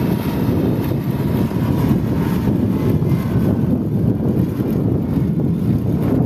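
Wheel loader's diesel engine running steadily as the machine drives across loose sand.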